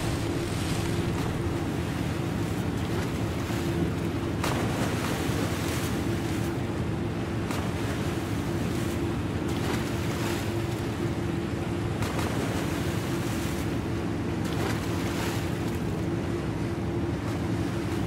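A container ship's bow wave rushing and splashing steadily along the hull, with soft swells every second or two, over a steady low droning hum.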